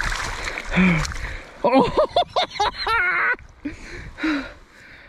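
Splashing in shallow river water as a large sockeye (red) salmon is landed at the bank, then about two seconds in a quick run of short wordless excited cries from the angler.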